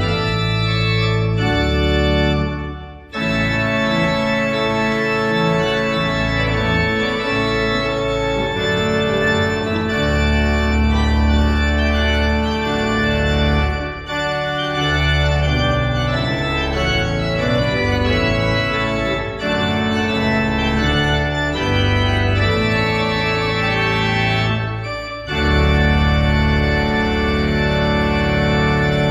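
Church organ playing a festive piece in sustained full chords over a low pedal bass, with short breaks between phrases about three seconds in and again near the end.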